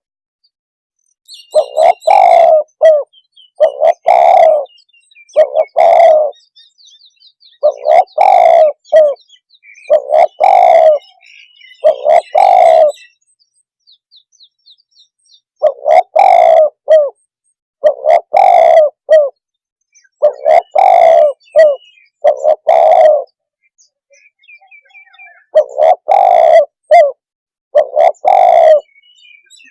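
Spotted dove (tekukur) cooing: loud, repeated short coo phrases in runs of several, with a couple of pauses of about two seconds between runs. Faint high chirps of small birds sound behind it.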